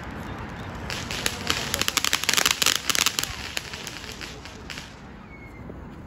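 A firework crackling: a rapid, dense run of sharp pops that starts about a second in, is loudest in the middle, and thins out and stops a little before the end.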